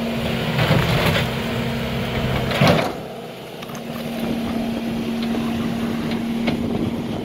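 Skid-steer loader engine running with a steady drone as its bucket shoves over a brick pillar. The bricks knock and then crash down loudly about two and a half seconds in. The engine tone drops out briefly after the crash and comes back.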